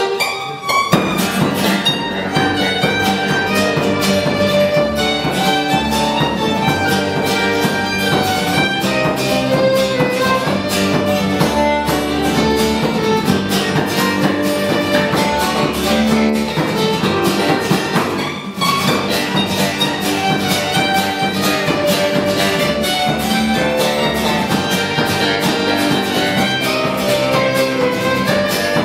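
Instrumental Ukrainian folk march played live by a small string band, with fiddle leading over mandolin, acoustic guitar and electric bass. The tune kicks in just under a second in and has a brief break about two-thirds of the way through.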